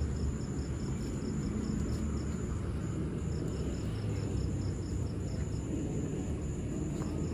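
Insects, likely crickets, chirping in a steady high trill with regular pulses about four times a second, over a low steady rumble.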